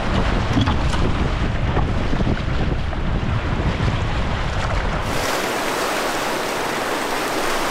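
Rushing whitewater rapids heard from a canoe running them, with heavy wind buffeting on the microphone and a low rumble. About five seconds in this gives way to the even hiss of the rapids, without the low buffeting.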